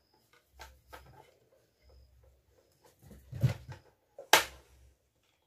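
Scattered sharp clicks and knocks of a hand tool prying broken bits of wooden handle out of a metal shovel blade's socket. The loudest is a sharp knock a little after four seconds in.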